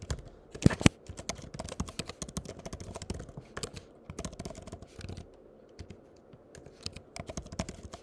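Typing on a computer keyboard: quick, irregular key clicks, with two louder key strikes about a second in and a short lull a little past halfway.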